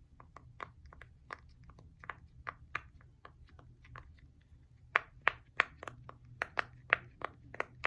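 Silicone bubbles of a mini ornament-shaped pop-it fidget being pressed one after another, a string of quick sharp pops that grow louder about five seconds in.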